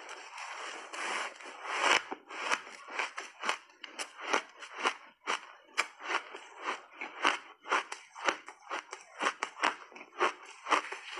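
Close-miked chewing of a mouthful of frozen squeaky shaved ice: a dense crunch at first, then a long run of short, sharp crunches, several a second, as the ice is bitten down.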